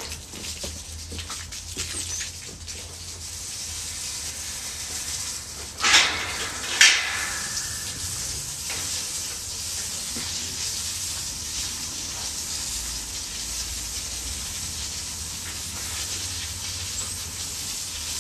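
Garden hose spraying water onto a kennel floor: a steady hiss that builds over the first few seconds. Two loud knocks about a second apart come near the middle.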